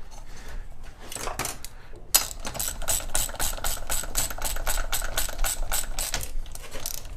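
Ratchet wrench clicking in even, rapid strokes for about five seconds, starting about two seconds in, as the spark plug goes back into the chainsaw; a few loose handling clicks come before it.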